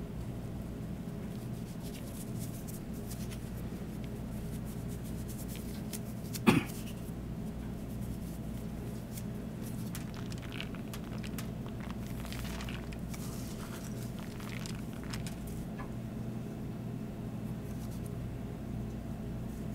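Steady low machine hum of a kitchen, with one sharp knock about six seconds in and faint, scattered light ticks later on.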